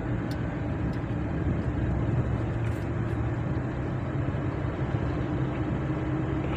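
Car engine and road noise while driving, a steady drone. The engine is misfiring on cylinder 1 and struggling to pull.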